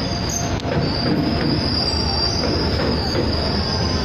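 Train wheels squealing against the rails as a freight train rolls slowly through a street level crossing: a steady high-pitched squeal over a continuous rumble of the wagons.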